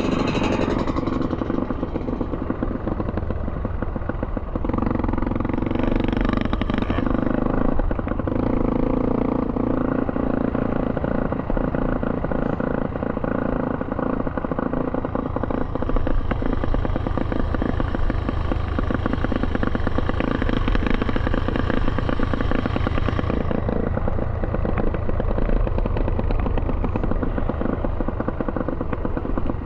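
Small off-road engine of a three-wheeled ATV running steadily as it is ridden along a dirt track, with another three-wheeler passing close at the start. The engine sound swells between about 5 and 10 seconds in.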